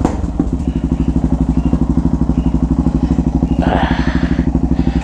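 Yamaha XT 660's single-cylinder engine idling with a quick, even pulse through twin Atalla stainless-steel exhaust tips with internal baffles. A brief scraping noise comes about three and a half seconds in.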